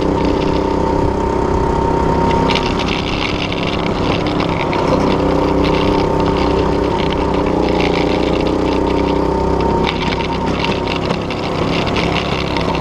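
Go-kart's small engine running steadily while the kart drives a lap, its hum held fairly even throughout.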